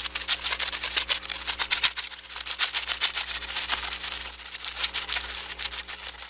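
Butterfly wing-flutter sound effect: a rapid, continuous run of soft, papery wing flaps, rising and falling slightly in strength, over a faint steady low hum.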